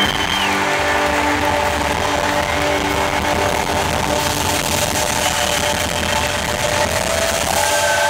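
Live rock band playing: electric guitar over drums, steady and loud throughout.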